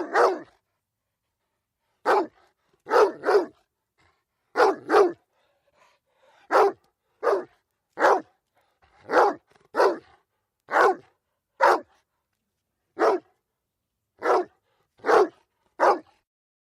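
A dog barking repeatedly, short sharp barks singly and in quick pairs, a second or so apart with silence between.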